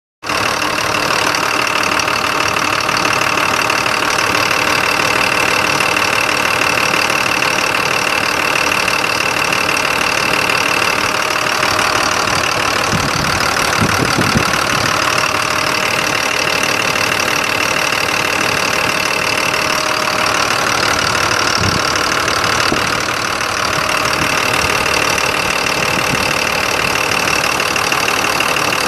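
Caterpillar 3116 six-cylinder turbo diesel running steadily at idle, heard close at the open engine bay, with a high whine that fades in and out.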